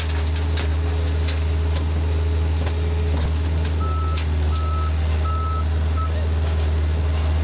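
A heavy machine's engine running steadily, with a few sharp knocks of timber and debris being pulled apart in the first second and a half. About halfway through, a reversing alarm starts beeping at one pitch, about one beep every 0.7 s.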